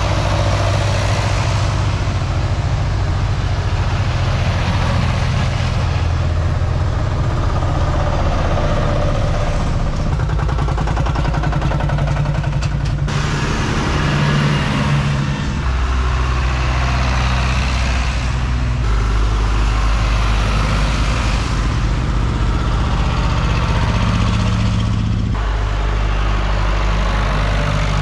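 Tractors driving past one after another, their engines running steadily. The engine note changes every several seconds as each next tractor comes by.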